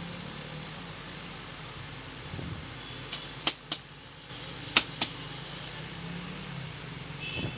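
A few sharp clicks and taps as a smartphone and tools are handled on a repair bench, clustered in the middle, over a steady low hum.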